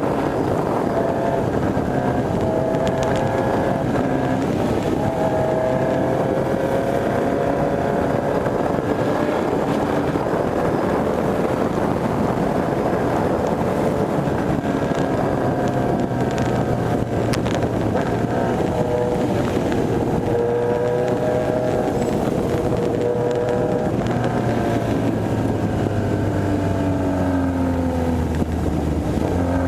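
Honda CB1000R's inline-four engine under way, its pitch rising and falling as it accelerates and changes gear, then dropping near the end as it slows. Wind noise on the microphone throughout.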